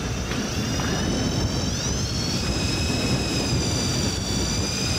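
Shimano ForceMaster electric fishing reel winding in line with a high motor whine that rises in pitch about two seconds in and then holds steady, over a steady low rumble of boat and wind.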